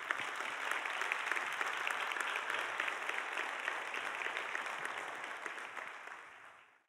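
Audience applauding: dense, steady clapping from a large crowd that fades out near the end.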